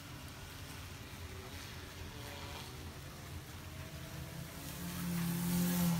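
Steady rain hiss. Near the end a DJI M210 quadcopter's propeller hum, flying fast in sport mode, swells louder for about a second and a half, then fades.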